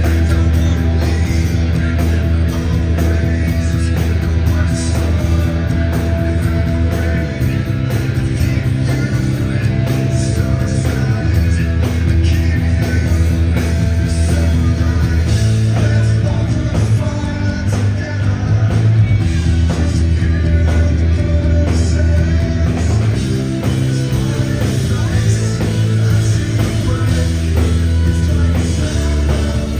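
Rock band playing live, heard through a fan's phone-style recording: heavy distorted guitars and bass holding long notes that change every few seconds, with drums and a sung vocal line.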